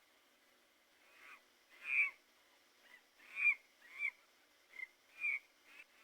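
Monkey calls: a series of about eight or nine short calls, each sliding down in pitch, starting about a second in.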